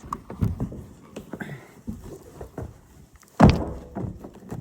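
Scattered knocks and clatter of car parts being handled and fitted, with one loud knock about three and a half seconds in.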